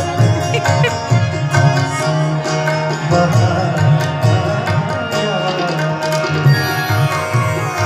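Tabla playing a rhythm, the deep strokes of the bass drum sounding throughout, over a held keyboard melody: the instrumental accompaniment of a Pakistani ghazal.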